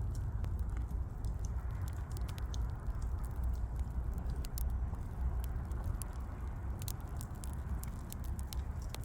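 Burning wood crackling: irregular sharp pops and snaps, several a second, over a soft hiss and a low rumble.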